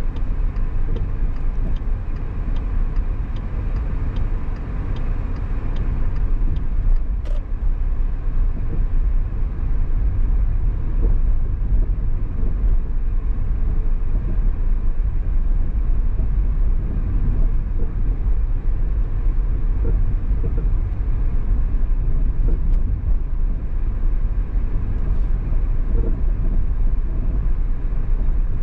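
Car driving on city streets: steady road and engine rumble. A light ticking, about three ticks a second, runs for the first several seconds, and there is a single sharp click a little later.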